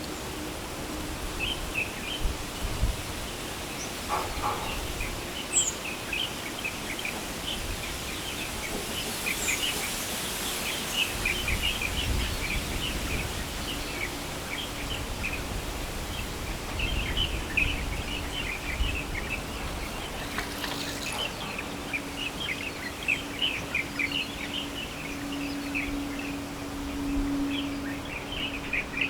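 Wild birds calling in a dense, overlapping stream of short high chirps, the kind of chorus where light-vented bulbuls and plain prinias sing alongside other species. A steady faint low hum runs underneath and grows louder late on.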